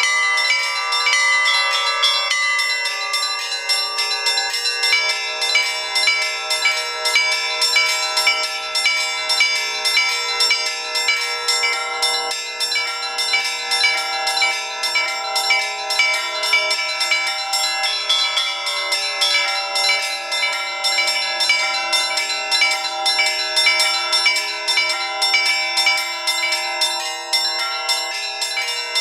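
Russian Orthodox church bells rung by a bell ringer: many bells of different pitches struck in a fast, continuous peal, their tones ringing over one another.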